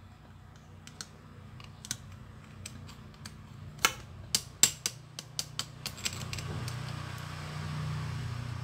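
Small metal pressure-washer pump parts (seal housings and fittings) clicking and clinking against each other as they are handled and fitted, with a run of sharper clinks around the middle. A low steady hum runs underneath, and a soft rustling hiss builds near the end.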